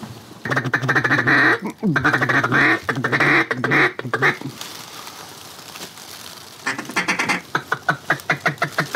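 Hunter's mallard duck call blown to work ducks overhead: a long loud run of hen quacks, then after a short pause a quick series of short notes near the end.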